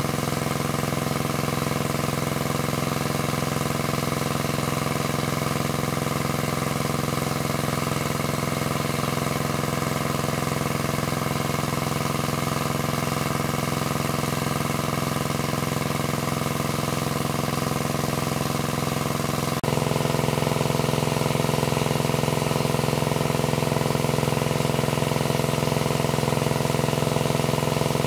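Engine of a high-capacity water pump running steadily at a constant speed. About two-thirds of the way through, the sound breaks off sharply and resumes slightly louder with a somewhat different tone.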